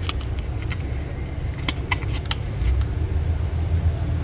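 A steady low rumble with a few sharp clicks and ticks, bunched a little before the middle.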